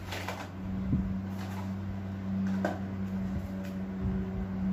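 Cardboard box and packaging being handled and rustled during an unboxing, in a few short bursts, over a steady low hum.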